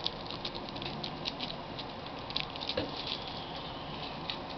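Zig-Zag rolling papers and their packet being handled: faint, uneven crackling and small ticks of thin paper.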